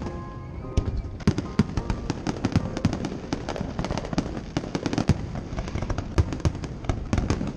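Fireworks going off in quick succession, several sharp bangs and crackles a second.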